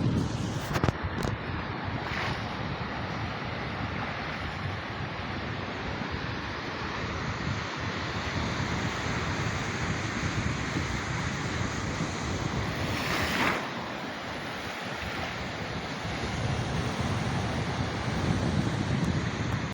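Sea waves breaking and washing on a beach, with wind buffeting the microphone. One wave surges louder about thirteen seconds in.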